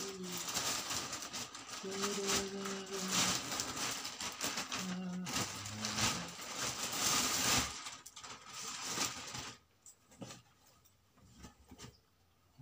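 A plastic packing bag rustling and crinkling as it is handled and opened, most of it in the first eight seconds, then softer rustling.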